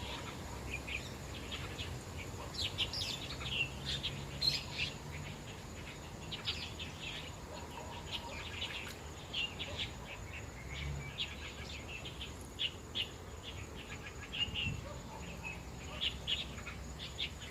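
Birds chirping in many short, high calls scattered throughout, over a faint steady background hum.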